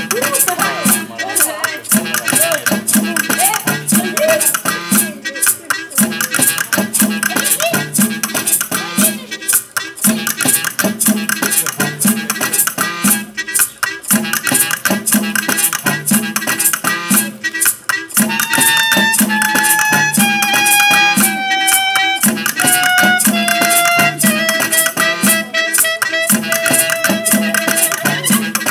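Live music with a fast shaker rattle over a steady low beat. About two-thirds of the way in, a held melody enters, its notes stepping down in pitch.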